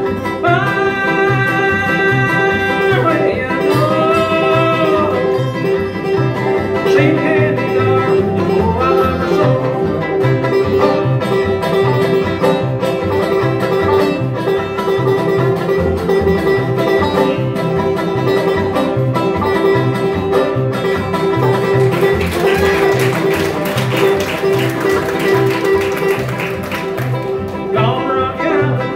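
Bluegrass band playing live: a picked banjo over acoustic guitar, with an upright bass keeping a steady beat.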